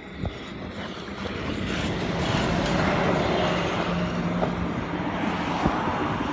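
Diesel locomotive engine running nearby with a steady low hum, swelling louder from about a second in and easing off near the end.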